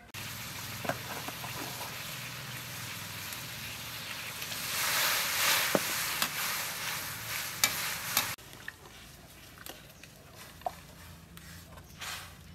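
Hot water hissing and bubbling in a wok over a wood fire while a turtle is scalded in it, with metal tongs clinking and scraping against the wok. The hiss grows louder past the middle, cuts off abruptly about eight seconds in, and quieter tong clinks follow.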